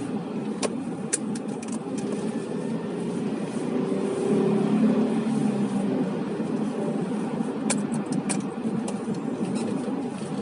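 Car driving in town, heard from inside the cabin: a steady engine and road-noise rumble that swells a little midway, with a few short, sharp clicks about a second in and again near the end.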